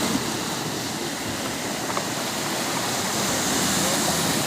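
Steady rushing water noise.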